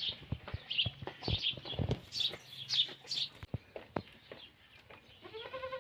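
Small birds chirping repeatedly in short, quick, high falling notes, with scattered sharp clicks or knocks. Near the end a short pitched animal call rises and falls.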